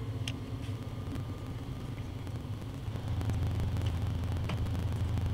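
A steady low hum that gets a little louder about three seconds in, with a few faint clicks and taps over it.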